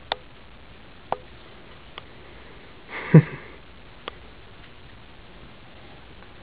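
A few faint, scattered sharp clicks, and about three seconds in one short, breathy sniff with a falling pitch, the loudest sound.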